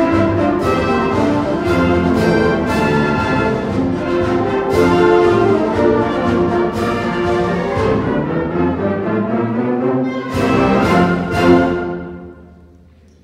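Concert band playing the final bars of a march: full brass and woodwinds with sharp accented strokes. It ends on a last loud chord near the end that dies away.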